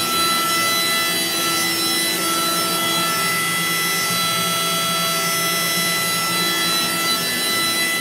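Mazak Integrex CNC machining centre milling a monowheel in simultaneous five-axis motion: the spindle and tapered end mill cutting metal with a steady whine of several held tones over a rushing noise.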